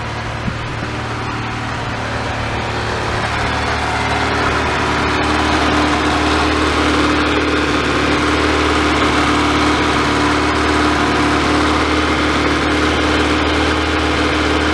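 A 2000 Honda CR-V's four-cylinder engine idling hot just after a head gasket replacement. It runs with a misfire, which the owner suspects comes from worn spark plugs. The idle grows somewhat louder over the first several seconds.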